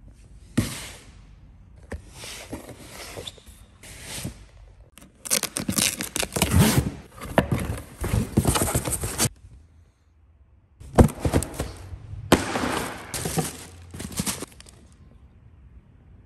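Cardboard shipping box being opened by hand: flaps scraping and paper packing rustling in several bursts, loudest about halfway through, with a sharp knock about two-thirds of the way in.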